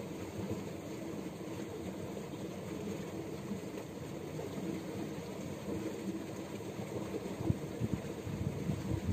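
Low, uneven rumble of wind buffeting the phone's microphone, with a few stronger gusts near the end.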